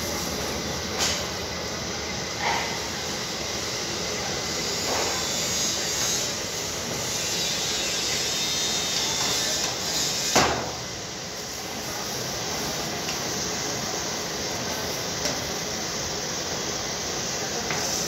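Metal hand tools scraping and knocking on a stainless-steel refrigerator tank over a steady background hiss, with a few sharp knocks and the loudest one about ten seconds in.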